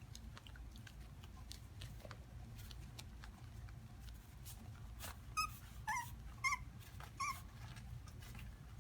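Havanese puppies whimpering: four short, high-pitched whines in quick succession about halfway through, over faint scattered clicking.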